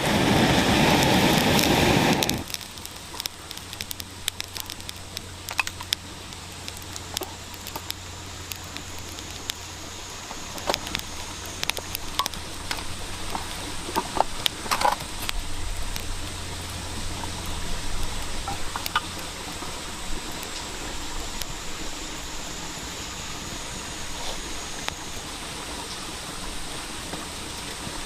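Wood campfire crackling, with irregular sharp pops and snaps over a steady hiss. A loud rushing noise covers the first two seconds and then cuts off.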